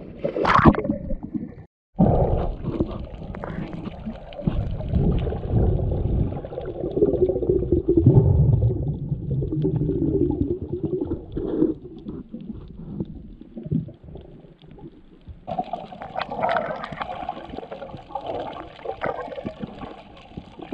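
Muffled rushing and gurgling of water heard underwater, as picked up by an underwater camera, with nothing clear and high-pitched.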